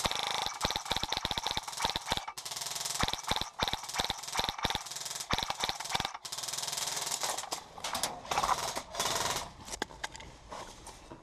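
Dense, irregular sharp clicks and knocks over rustling noise, with no steady rhythm.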